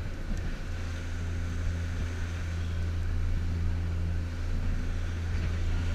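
Tour boat's engines running steadily under way, a low drone, with a steady rush of wind and water across the open deck.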